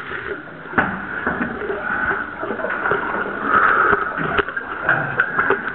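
Water sloshing and splashing around a caver moving through a flooded, low-roofed cave sump, with scattered knocks and scrapes.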